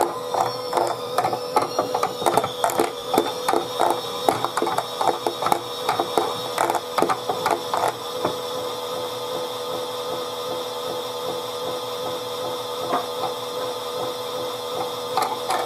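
Small electric motor of a Chad Valley toy washing machine spinning its drum: a steady motor whine with a fast clattering rattle through the first half, settling to a smoother, even hum from about halfway.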